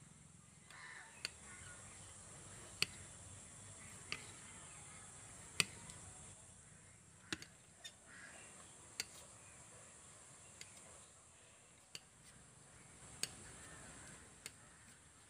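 A knife chopping tomatoes on a granite stone slab: single sharp knocks of the blade on the stone, unevenly spaced about once every second or so.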